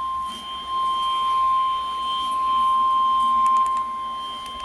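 NOAA Weather Radio warning alarm tone: one long, steady, high single-pitch beep, the attention signal that comes before a severe thunderstorm warning is read.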